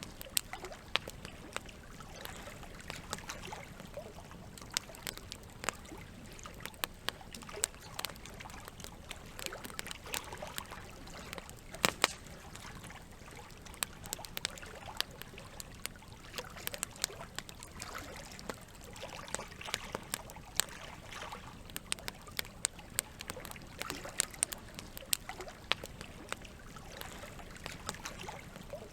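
Wood campfire crackling with frequent sharp pops, the loudest a pair about twelve seconds in, over steadily trickling water.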